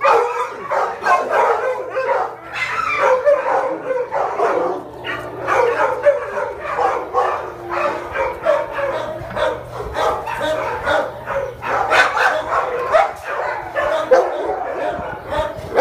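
Many kennelled shelter dogs barking and yipping over one another in a continuous, dense chorus.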